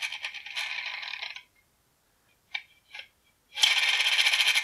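The pull-tab ripcord of a plastic G.I. Joe Ninja Lightning Cycle toy is pulled, spinning its rear wheel with a fast ratcheting whir that dies away about a second and a half in. Two light clicks follow, then a second pull starts another whir near the end.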